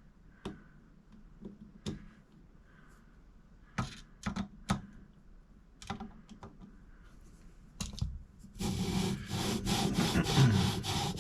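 A few light clicks and taps of metal parts being handled, then about eight and a half seconds in a loud, gritty, rhythmic scraping starts as a scope-ring lapping bar coated with lapping compound is worked back and forth inside Weaver scope rings.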